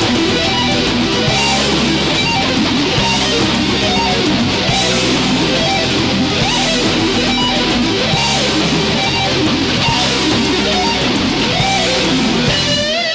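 Thrash metal recording in an instrumental passage without vocals: distorted electric guitar riffing. Near the end a single held note wavers in pitch.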